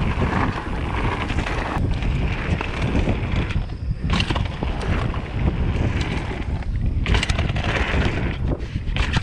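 Mountain bike riding fast over a dirt singletrack trail: wind rushing over the microphone with the rumble of tyres on dirt and rattling knocks from the bike over bumps.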